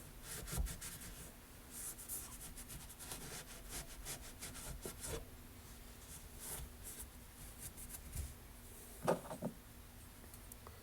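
Hand cleaning of metal mower-deck spindle parts: scratchy rubbing and scrubbing in short, irregular strokes, with a brief squeak about nine seconds in.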